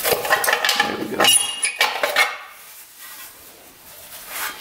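Sheet-metal blower shroud of a 5 hp Briggs & Stratton engine being worked loose and lifted off, clanking and rattling with a brief metallic ring. It goes quieter after about two seconds.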